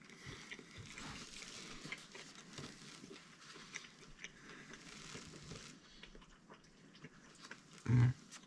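A person eating: faint chewing and crunching with small clicks, and one short, louder low sound near the end.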